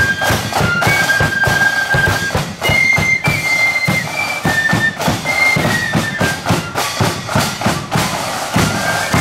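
Marching flute band playing a tune: flutes carry the melody in high held notes over steady beats from the drums and cymbals.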